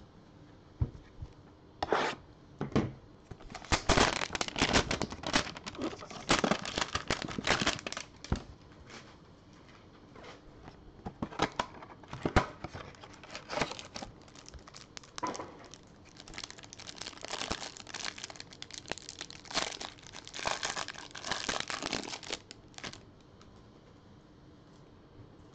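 A cardboard trading-card hanger box being torn open and its packaging crinkled and crumpled as the card stack is pulled out, in irregular bursts of rustling that begin about two seconds in and stop shortly before the end.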